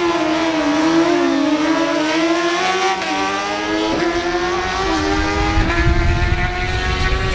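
Two inline-four superbikes, a BMW S1000RR and a Suzuki GSX-R1000, accelerating hard at high revs. The high engine note drops and climbs back several times as they shift up through the gears.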